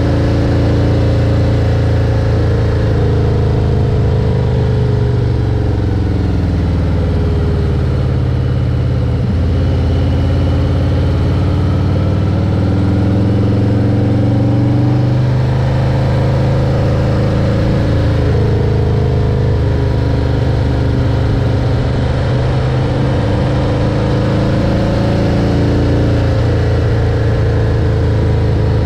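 A motor vehicle's engine running while under way, its pitch slowly rising and falling over several seconds as it speeds up and eases off, with a sudden drop in pitch about nine seconds in.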